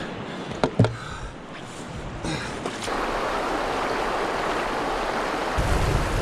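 Rushing river water from rapids: a steady even rush that swells about three seconds in, with a couple of sharp knocks near the start.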